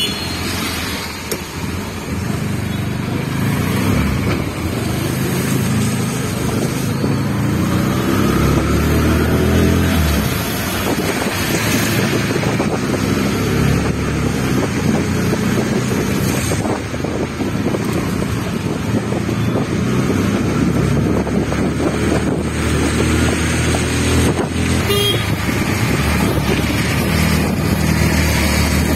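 Motor vehicle traffic: engines running steadily and loudly, with a low engine hum that rises and falls slightly now and then.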